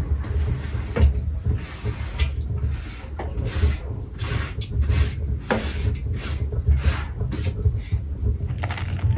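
Chopped fresh greens being scraped by hand off a wooden cutting board into a metal bowl: a quick series of scraping and brushing strokes, over a steady low hum.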